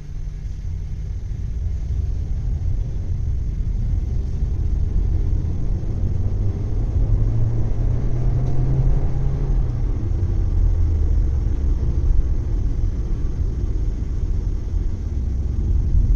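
Low, steady rumble of road and engine noise inside the cabin of a moving Volkswagen Taigun GT, building a little over the first few seconds, with a faint rising engine note about halfway through.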